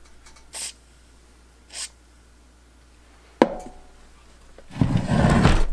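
Handling noise on a wooden workbench: a single sharp knock about three and a half seconds in, then about a second of loud rubbing and scraping near the end as things are moved about on the bench.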